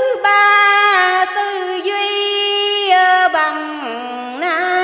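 A woman's voice chanting Vietnamese Buddhist verse in the drawn-out ngâm style, with long held notes that slide and waver between pitches and step lower about three seconds in.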